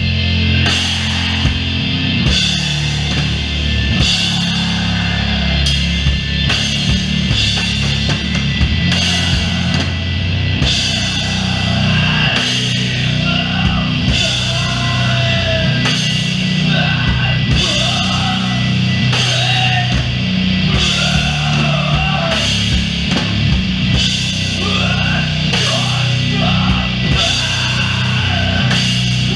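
Doom metal band playing live: slow, heavy distorted guitars and bass over drums, with cymbal crashes about once a second. A wavering higher line joins about twelve seconds in.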